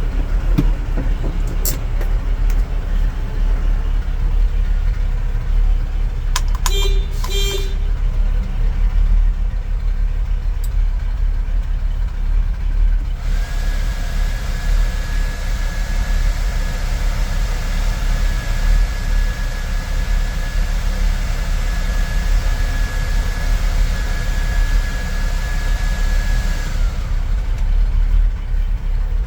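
V8-swapped Toyota FJ45LV Land Cruiser engine idling steadily. About seven seconds in the horn gives two short toots, and from around the middle a steady high-pitched whine with a hiss runs for about thirteen seconds over the idle, then stops.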